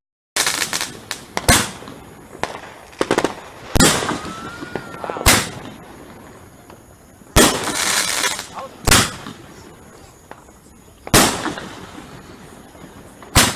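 Fireworks going off: a string of sharp bangs every one to two seconds, with a spell of crackling about halfway through.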